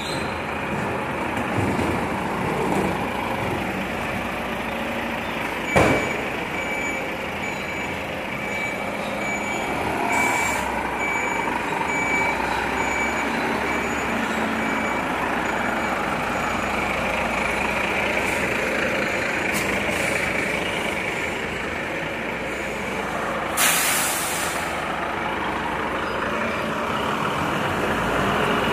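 Volvo FM 370 garbage truck's diesel engine running as it manoeuvres, with its reversing alarm beeping from about six to thirteen seconds in. A sharp knock comes just before the beeps start, and a short air-brake hiss comes about 24 seconds in.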